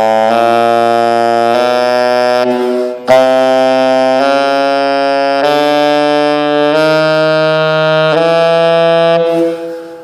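Selmer Mark VI saxophone, played with a gold-plated Barone neck, playing a slow solo line of long held notes. About three seconds in there is a brief break and a sharp re-attack, and the last note fades out near the end.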